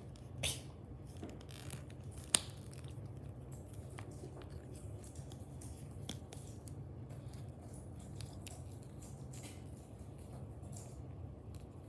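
Hard plastic toy pieces being handled and pressed together as a dragon figure's wings are fitted: a few sharp clicks, the loudest a little over two seconds in, then faint scattered ticks over a low steady hum.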